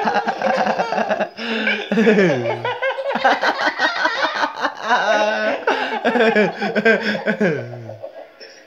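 Laughter in long, nearly unbroken runs, a baby's among it. Two laughs slide down in pitch, about two seconds in and near the end, and the laughing dies away just before the end.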